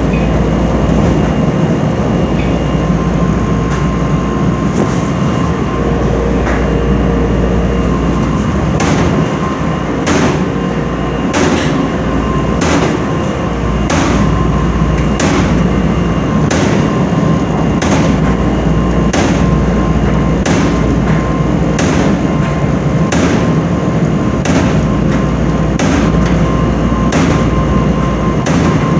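Stacked commercial laundromat dryer running loudly: a steady rumble of the turning drum, with a sharp knock about once a second from about five seconds in.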